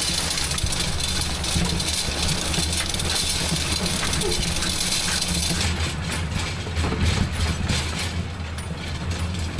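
A farm tractor running steadily, with the rumble and hiss of hay machinery working. From about six seconds in there are short rattles and clatters.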